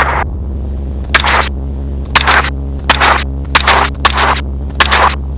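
Gunshots fired from a helicopter, about eight in quick uneven succession, each a short sharp crack, over the steady drone of the helicopter.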